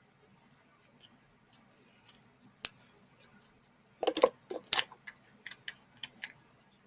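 Handling noise of slime play: small scattered clicks and crackles as the slime is squeezed in the hands, then a louder clatter of knocks about four seconds in as a plastic slime container is handled, followed by a few lighter ticks.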